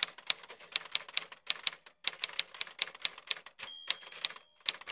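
Typewriter keys clacking in quick, irregular strokes, with a short pause about two seconds in and a brief high ringing tone near the end.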